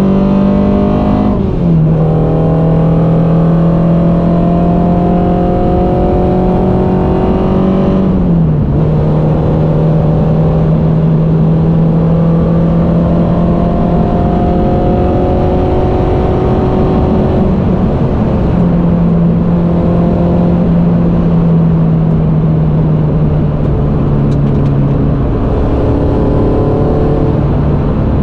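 A modified Peugeot 106 Quicksilver's engine is pulling hard at high revs, heard from inside the cabin over steady tyre and road noise. Its note drops abruptly twice, about a second and a half and eight seconds in, as it shifts up, then climbs again and drops once more near the end.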